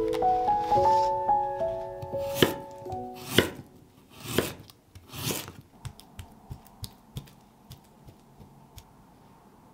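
Soft piano notes ending about three seconds in, with two sharp clicks over them, followed by a chef's knife cutting through a firm root vegetable on a wooden cutting board: a few swishing strokes, then a run of light knocks of the blade on the board, about three a second, fading away.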